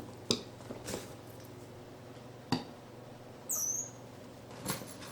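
A short, very high-pitched squeak from a baby capuchin monkey a little past halfway, with a few sharp taps and knocks before it.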